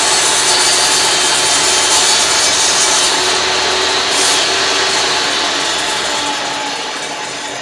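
Electric power saw running and cutting through wood, a loud steady motor whine with the rasp of the blade, easing off near the end.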